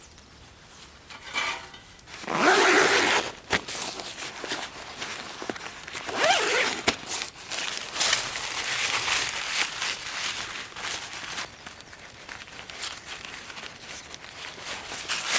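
Rustling and handling sounds, with two louder rasping bursts about two and six seconds in, and a few sharp clicks.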